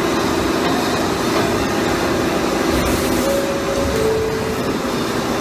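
Pipe-end bevelling machine running on a line pipe: a steady mechanical noise with a faint hum.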